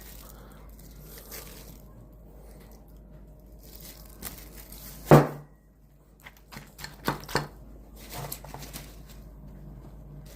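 Handling sounds: light rustling, one sharp knock about five seconds in, then a few quick clicks and more rustling.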